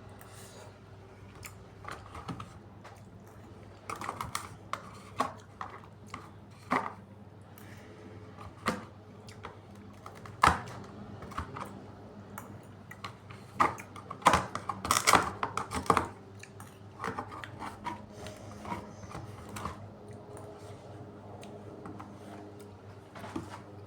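Close-miked eating sounds: irregular crisp clicks and smacks of chewing and mouth noise, busiest and loudest about fourteen to sixteen seconds in, over a low steady hum.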